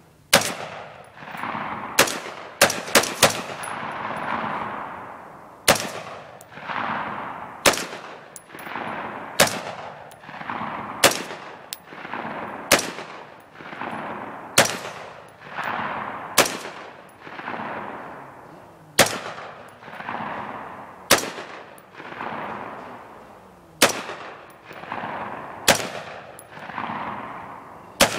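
AR-15 rifle fired semi-automatically, about two dozen shots mostly around one a second, with a quick string of four near the start. Each shot is followed by a long rolling echo.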